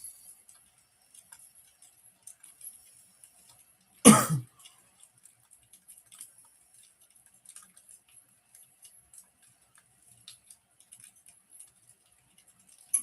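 Wood fire crackling with sparse small snaps, and one loud pop about four seconds in; another sharp snap comes near the end.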